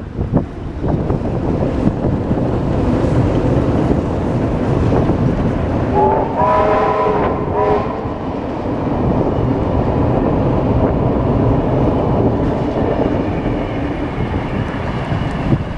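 An AD60 class Beyer-Garratt steam locomotive hauling a train of carriages across a steel girder bridge, with a steady rumble of wheels and bridge. About six seconds in, the train sounds a chord on its whistle, held for nearly two seconds.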